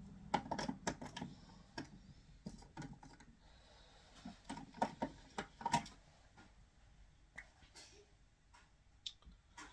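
Scattered light clicks and taps of small makeup items being handled and picked through, irregular and denser in the first six seconds, sparser toward the end.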